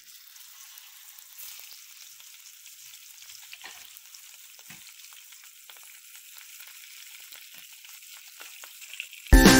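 Masala-coated pomfret sizzling and crackling in hot oil in a frying pan as the fish are laid in one at a time. Loud music cuts in just before the end.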